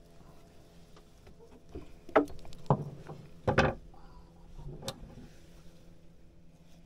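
A few sharp knocks and clatters, the loudest about two and three and a half seconds in, over a steady low hum.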